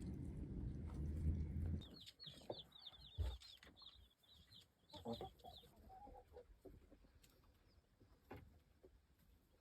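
Chickens: chicks peeping in a fast run of high, short chirps, with a few lower clucks around the middle. A low rumble stops about two seconds in.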